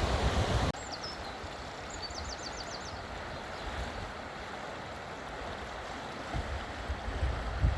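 Tarn river water flowing, a loud rush that drops abruptly to a softer, steady flow about a second in. A short run of quick high chirps comes a couple of seconds in, and a low rumble rises near the end.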